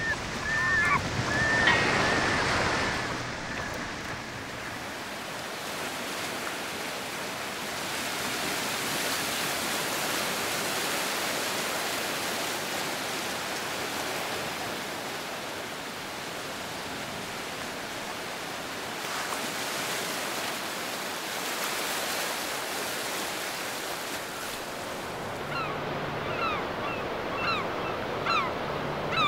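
Sea surf washing on a sandy beach, a steady rushing hiss that swells and eases. Near the end, a quick run of short, falling bird chirps sounds over it.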